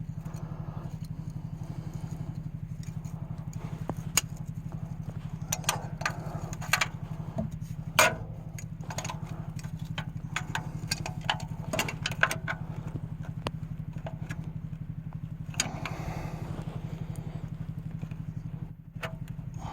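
Sharp metal clicks and knocks of a filter wrench being worked around an oil filter, over a steady low mechanical hum that pulses finely and evenly.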